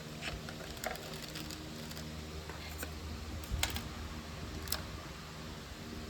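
Scattered light plastic clicks and taps of clear PC keycaps being handled and pressed onto the switches of a mechanical keyboard, with two sharper clicks a little past halfway and later on.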